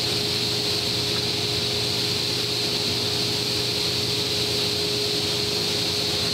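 Steady whir of workshop machinery running: a constant hum with an even hiss above it, unchanging throughout.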